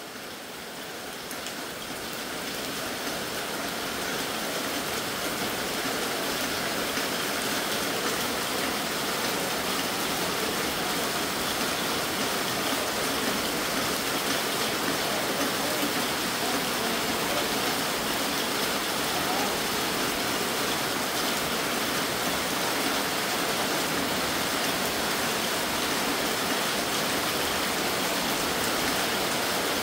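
Heavy rain falling steadily onto a flooded yard and into puddles, a dense even hiss that grows louder over the first few seconds and then holds steady.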